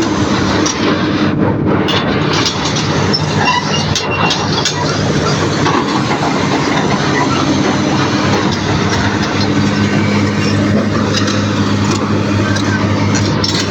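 Excavator diesel engine running steadily under load, with scattered metallic clanks and ticks over the engine drone.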